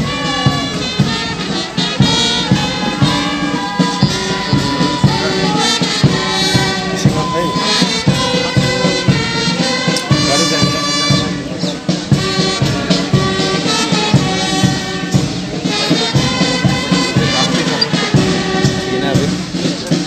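A marching band playing a march: a brass melody over a steady drum beat.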